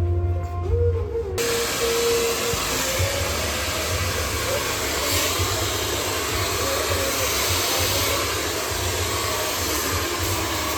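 Hand-held hair dryer switched on about a second in, then blowing steadily.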